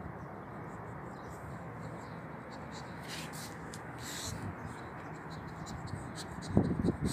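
Dog gnawing on a piece of old, dry wood: faint small clicks and scrapes over a steady background hiss, then a few loud crunches near the end.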